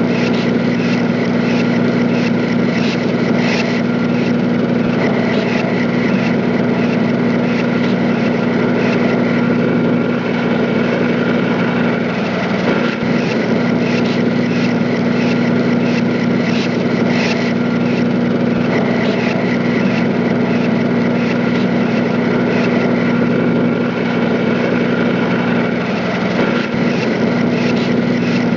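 Loud, steady drone of a running machine, with a strong low hum and occasional light knocks over it.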